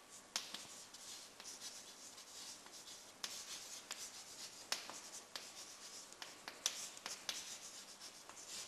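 Chalk writing on a blackboard: faint scratching strokes with sharp taps of the chalk against the board scattered throughout.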